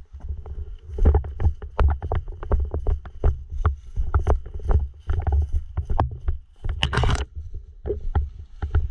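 Movement and handling noise close to the microphone: irregular low thuds and sharp clicks, with a short rush of noise about seven seconds in.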